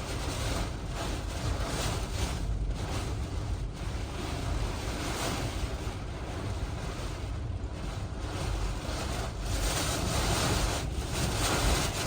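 Hurricane eyewall winds blowing hard in irregular gusts, with a deep rumble of wind buffeting the microphone.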